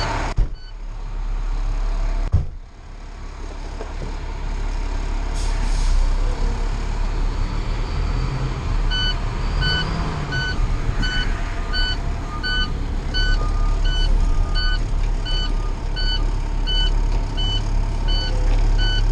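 A fire engine's diesel engine runs with a steady low rumble, heard from inside the cab. Two heavy door slams come in the first few seconds. From about halfway on, an electronic warning beeper sounds about twice a second.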